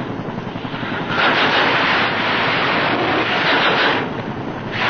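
Helicopter in flight: rotor chop and engine noise, swelling louder about a second in and easing off near the end.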